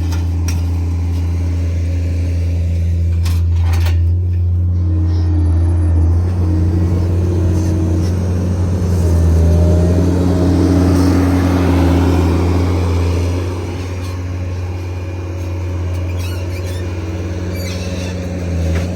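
Skid steer loader engine running under load as its grapple squeezes and lifts a bundle of small square hay bales, its note rising and falling, with a louder stretch around the middle, over a steady engine drone.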